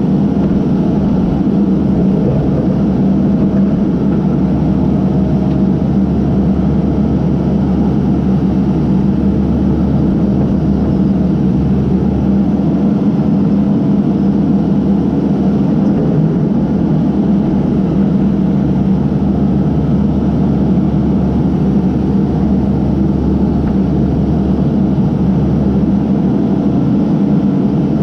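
Case backhoe's diesel engine running steadily under work, a continuous loud low hum with no breaks or changes.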